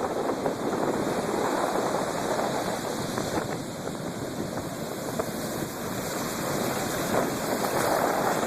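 Storm surf on the Black Sea: a steady rush of breaking waves with wind on the microphone, easing a little midway and building again near the end.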